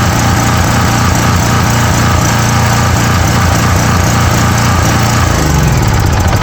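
Small portable generator's engine running steadily and loudly.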